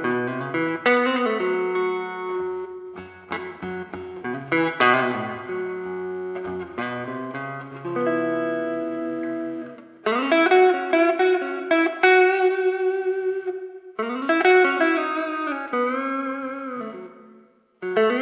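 PRS Silver Sky SE electric guitar, with its single-coil pickups, playing Strat-style blues licks with bent notes. The phrases break off briefly about ten and fourteen seconds in, and again just before the end.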